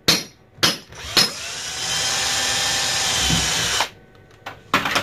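Power drill working on a kitchen cabinet door: two short blips, then a steady run of about two and a half seconds, then two more short blips near the end.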